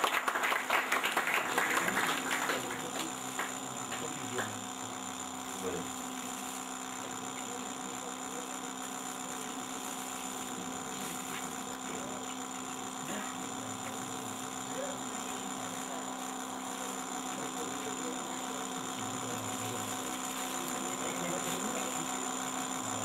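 Audience applause that dies away in the first two or three seconds, followed by a steady electrical hum under faint murmuring voices in the room.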